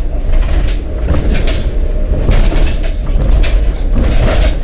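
Inside a van's cab driving over a rough, puddled road of old concrete slabs: a steady low rumble with irregular knocks and rattles as the body jolts over the slab joints and potholes.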